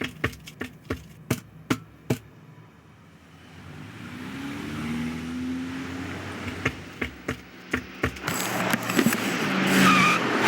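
Film sound effects of street traffic: a run of sharp clicks for the first two seconds, then cars approaching and passing with engine pitch gliding, growing louder, and tyres squealing near the end as cars brake and skid.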